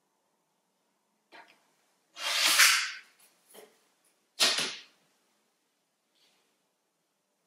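Hands and arms brushing and sliding across the tabletop among the paper dominoes: a soft swish about two seconds in, then a shorter, sharper one about halfway through, with a few faint ticks around them.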